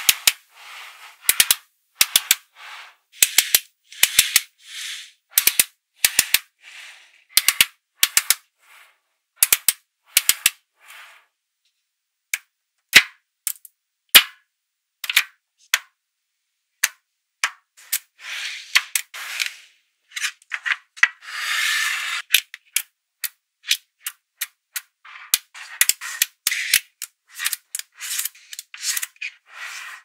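Small magnetic balls clicking and snapping together as blocks of them are joined into bars and pressed into sheets: many sharp clicks, often in quick clusters, with short stretches of rattling as the balls shift against one another.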